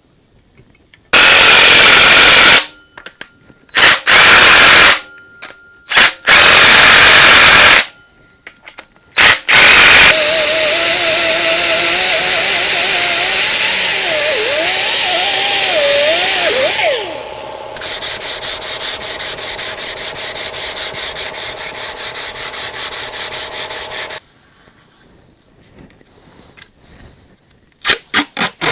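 Compressed air from a blow gun, used to clean engine parts for paint. It comes as several short loud blasts, then one long blast of about seven seconds with a wavering whistle in it. A quieter, evenly pulsing mechanical sound of about five beats a second follows.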